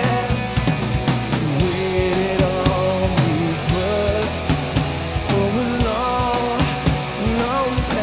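A live rock band playing: electric guitars, bass and drum kit, with a melody line moving over a steady drum beat.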